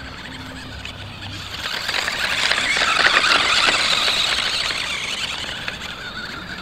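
Remote-control toy quad bike's small electric motor running with its wheels spinning, a rushing whir that builds over a couple of seconds and then fades.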